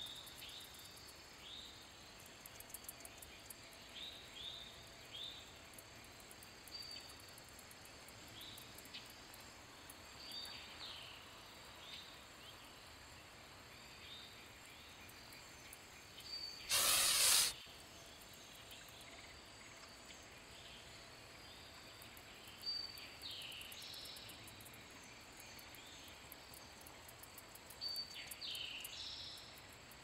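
Canada goose giving one loud, short hiss a little past the middle. Short high chirps go on throughout.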